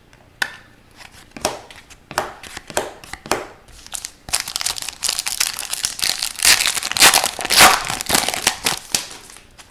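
Foil trading-card pack wrapper crinkling and tearing under the hands: a few scattered crackles at first, then about halfway in a dense, louder burst of crinkling as the pack is ripped open.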